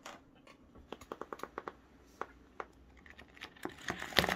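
A thumb riffling through the edge of a thick stack of A1 paper sheets, making quick light clicks and flaps that come thicker near the end.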